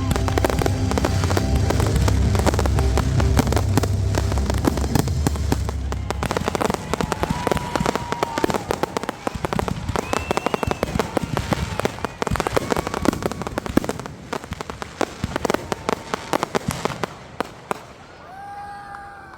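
Fireworks finale: a dense barrage of rapid cracks and bangs over a heavy booming rumble for about the first six seconds, then thinning to scattered crackles that die away near the end.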